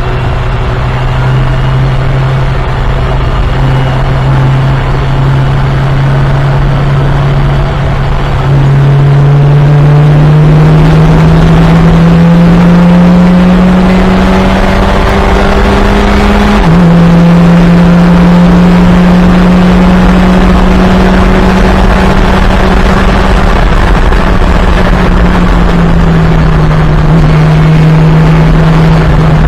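Fun Cup race car engine running hard under load. Its note climbs slowly through a long pull, drops suddenly at a gear change about halfway through, holds steady, then eases down near the end.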